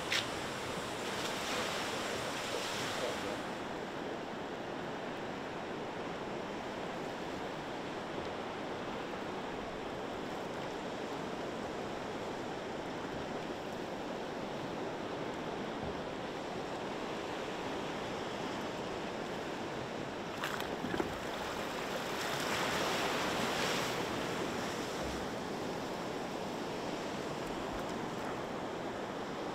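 Small waves washing onto a shore in a steady hiss of surf that swells louder twice, near the start and about three-quarters through.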